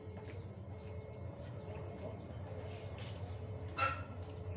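Faint outdoor ambience of small birds chirping, with evenly repeated high chirps, over a low steady rumble; a short, louder call about four seconds in.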